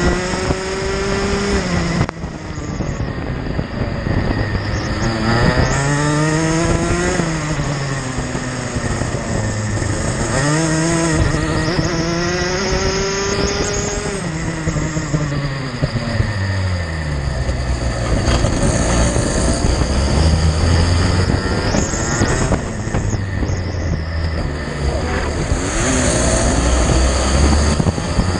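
Racing kart engine heard from a camera mounted on the kart, revving up and dropping back several times in quick succession as it accelerates and brakes through corners, then holding a lower, steadier note. A constant rush of wind and wet-track spray noise runs underneath.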